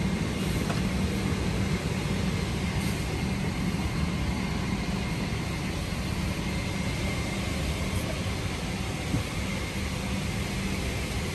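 Steady vehicle noise: a low rumbling hum under an even hiss, with a faint high tone.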